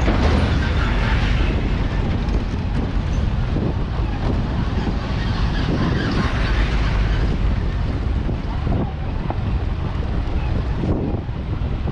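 Steady road-vehicle noise, a low rumble mixed with wind buffeting the microphone.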